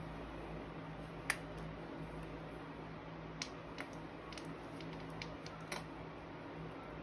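Hands taking apart a plastic highlighter over a clear plastic box: a few sharp plastic clicks and light taps, the loudest about a second in, with a cluster of lighter ones over the next few seconds as small bits drop into the box. A steady low hum runs underneath.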